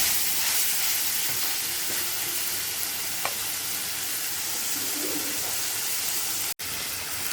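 Chopped onion and green chillies sizzling in hot coconut oil in a pan, a steady hiss; the sound cuts out for an instant near the end.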